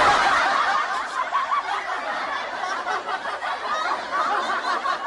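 Many people laughing at once in a dense, continuous chorus of chuckles and giggles that slowly gets quieter.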